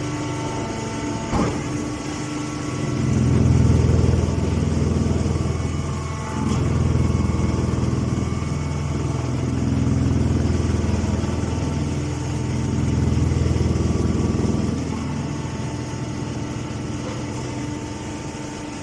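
Stationary hay baler running with a steady machine hum. It swells louder and deeper four times for a couple of seconds each, starting about three seconds in. There is a sharp click just over a second in.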